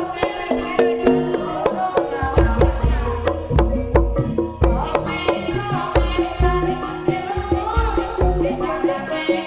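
Banyumasan lengger music: kendang hand drums beat a quick, steady rhythm of deep strokes under ringing tuned percussion.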